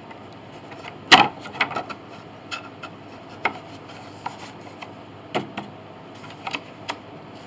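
Wooden soundboard panels being handled and shifted against each other on a bench: a scattering of light knocks and clicks, the loudest about a second in.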